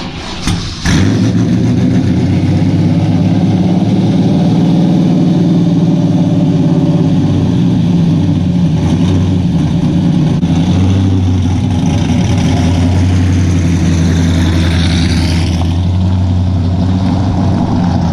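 LS1 V8 of a Chevrolet NASCAR Craftsman Series truck starting up about a second in, then running loud and steady.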